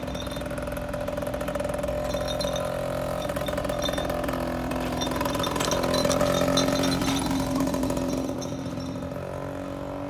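Diesel railcar set running along the track, its engines giving a steady drone that swells and then fades near the end as the train pulls away.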